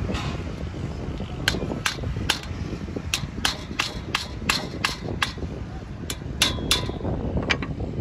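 Small hammer striking a sawmill band saw blade held in a clamp: about fourteen sharp metallic taps in an uneven rhythm, starting about a second and a half in, some with a brief ring.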